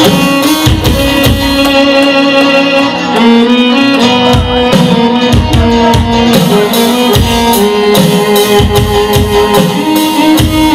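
Live band playing an instrumental passage with no singing: keyboard and electric guitar carry a held melody that steps from note to note over a steady drum beat.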